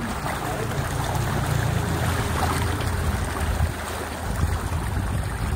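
Sea water rushing and splashing beside a small aluminium fishing boat, over a steady low rumble, with wind on the microphone.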